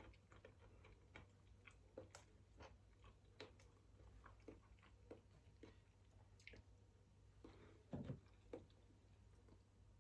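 A person chewing food close to the microphone: faint, irregular mouth clicks and smacks, a few a second, a little louder about eight seconds in.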